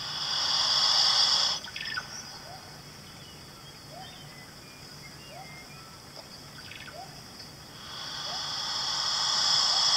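Frilled lizard hissing twice: each hiss swells over a second or two and then cuts off sharply, the first at the start and the second near the end. In between there is a faint outdoor background with small chirps about once a second.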